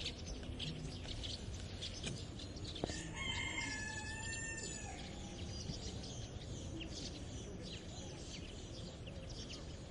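Rooster crowing once, starting about three seconds in and lasting about two seconds, with a drop in pitch at the end. Small birds chirp throughout over a steady low rural background.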